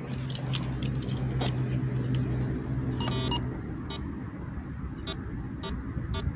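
Metal detector giving a longer tone about three seconds in, then a string of short beeps as the dirt from the dig hole is checked. Before that, a gloved hand scrapes through loose soil with light clicks over a low steady hum.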